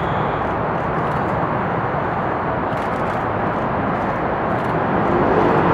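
Jet noise from a McDonnell Douglas MD-83 airliner's rear-mounted Pratt & Whitney JT8D turbofans on landing approach: a steady rumbling rush that grows a little louder near the end.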